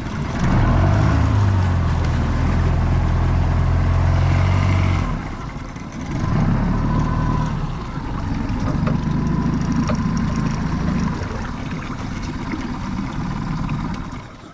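Outboard boat motor running close by, holding a steady note for a few seconds, then easing off and coming back with its pitch rising and falling as the throttle changes.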